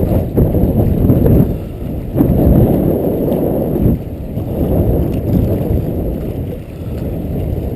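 Strong wind buffeting the microphone: a loud, low rumble that rises and falls in gusts.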